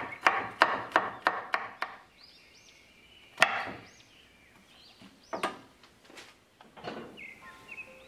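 Chef's knife chopping on a wooden cutting board: a quick run of about seven strokes in the first two seconds, then a few separate chops, the loudest about three and a half seconds in.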